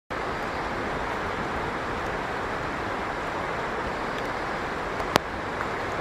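Steady outdoor rushing noise, even and unbroken, with a single sharp click about five seconds in.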